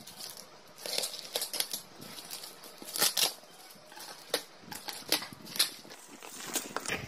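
Black plastic wrapping crinkling and packing tape tearing as a parcel is cut and pulled open by hand, in irregular short rustles, the loudest about three seconds in.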